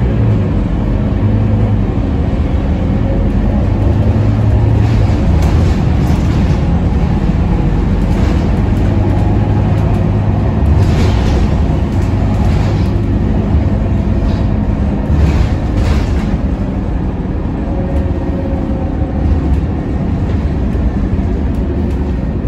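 Inside a moving Scania K230UB Euro 4 single-deck bus: its five-cylinder diesel engine runs with a steady low drone under continuous road and tyre noise. Several short swells of hiss come and go in the middle.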